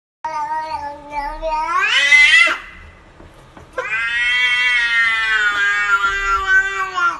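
Domestic cat making two long, drawn-out meows. The first rises sharply in pitch at its end. The second, after a short pause, is held steady and drops slightly as it ends.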